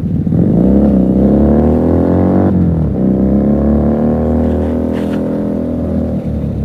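Motorcycle engine accelerating under the rider: the pitch climbs for about two and a half seconds, drops sharply at a gear change, then pulls up again in the next gear and holds before easing off near the end.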